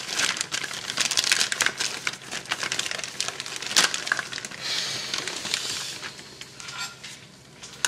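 Thin plastic bag crinkling and rustling as hands open it and take things out of it, with a sharp crackle near the middle, then quieter near the end.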